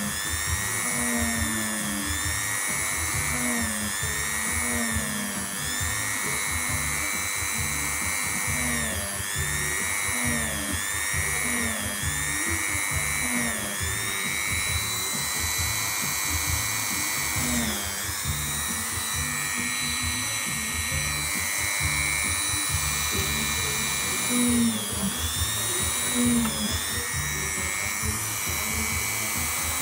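Small electric drill running with a high whine, its pitch sagging and recovering over and over as the bit is pressed into the leather of a cap.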